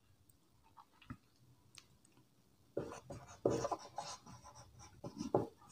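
Felt-tip marker writing on a whiteboard: a faint run of short scratchy pen strokes that begins about three seconds in.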